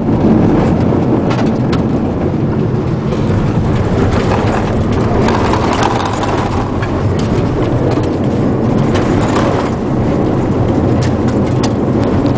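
A car driving, heard from inside the cabin: steady engine and road noise, with scattered light knocks.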